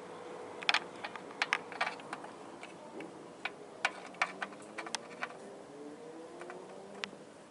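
Irregular sharp scratching clicks, a dozen or more scattered over several seconds: the mystery scratchy noise that sounds to the listener like some sort of animal, which he had taken for his neighbour but now doubts.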